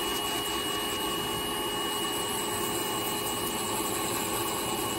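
Podiatry electric drill with a grey abrasive bur grinding thick callus and cracked skin on a big toe: a steady high motor whine over an even grinding hiss.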